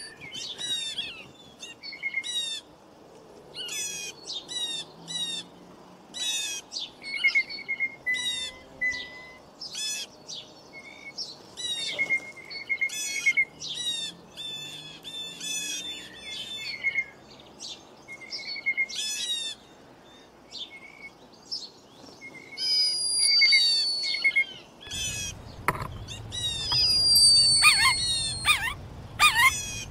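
Songbirds singing: many quick, high chirps and trills repeating throughout, with a long falling whistle near the end. A low rumble joins in the last few seconds.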